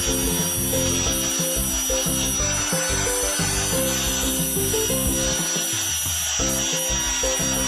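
Angle grinder's abrasive disc grinding steel: a steady hiss of grinding with a thin high whine throughout. Background music with changing notes plays underneath.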